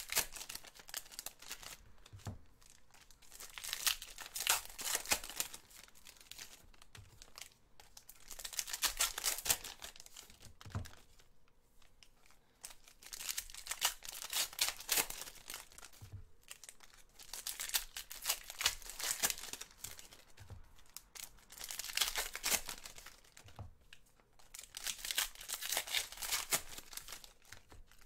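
Foil trading-card pack wrappers, Panini Contenders basketball packs, being torn open and crinkled by hand, one pack after another: a burst of tearing and crinkling every four seconds or so, each lasting a second or two.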